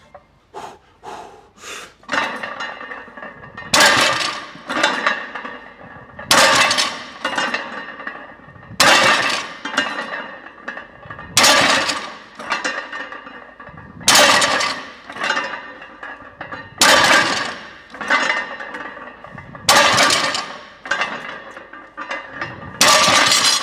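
A 405 lb loaded barbell set down on the floor on each of eight deadlift reps, about every two and a half seconds. The plates clank and rattle with each touchdown, and there are a few lighter knocks before the first rep.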